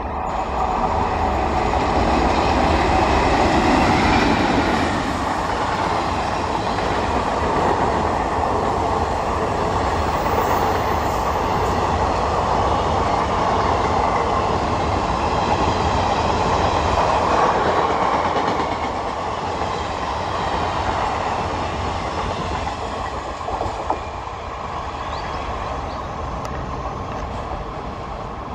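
Indian Railways express train of ICF coaches passing at speed: the wheels clatter and rumble over the rails as the coaches rush by. It is loudest in the first two-thirds and eases off in the last third as the rear of the train pulls away.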